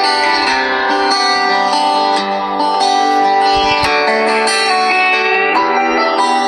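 Omoto mobile phone ringtone: a continuous guitar-led melody playing.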